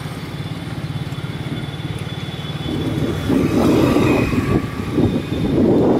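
A small motorcycle engine running with a fast, even pulse. From about halfway through, a louder, uneven rumble of road and wind noise comes in.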